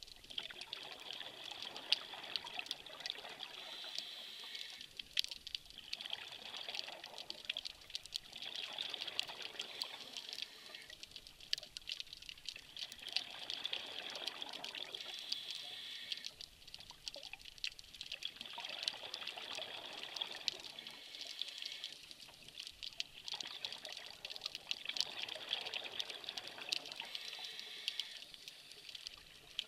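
Scuba diver's breathing heard underwater: bursts of regulator exhaust bubbles gurgle every few seconds, over a constant fine crackling.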